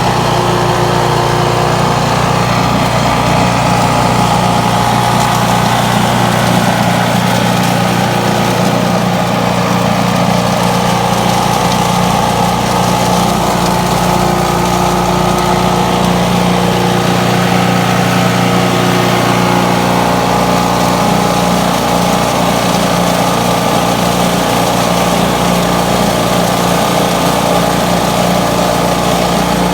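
MTD Yardman petrol garden leaf vac's Briggs & Stratton Quantum single-cylinder four-stroke engine running steadily at an even speed.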